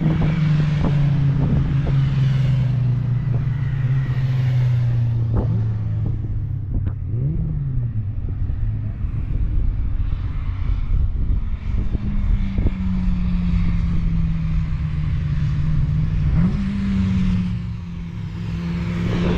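Historic one-litre Formula 3 race cars' high-revving four-cylinder engines passing on the circuit. The engine note falls away over the first several seconds, with quick pitch jumps at gear changes, and another car's engine rises near the end.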